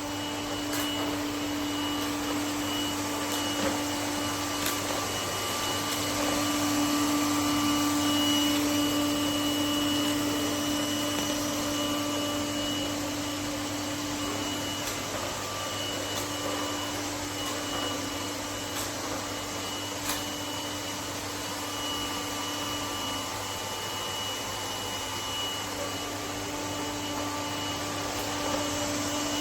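Lefant M1 robot vacuum running, its suction motor giving a steady rushing noise with a low hum and a thin high whine, and a few faint clicks.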